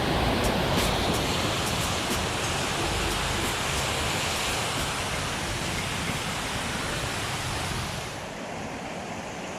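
Mountain stream water rushing steadily over rocks, a full even hiss that gets a little quieter and duller near the end. A few faint high ticks sound in the first couple of seconds.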